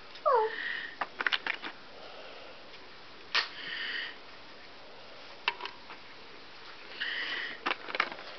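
Small sharp clicks and taps from fingers handling stick-on nail gems and their clear plastic tray, with a short falling squeak near the start. Two sniffs, about three and a half and seven seconds in.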